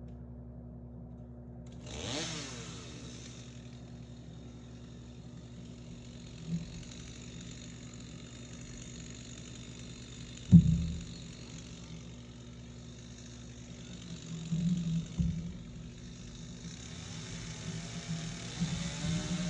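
A motor running steadily, with a rising whine about two seconds in. A single sharp knock comes about halfway through, and a few softer bumps follow later.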